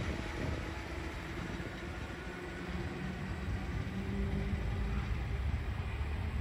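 Electric suburban train pulling away down the line: a steady low rumble of wheels and motors that dips a little, then firms up again.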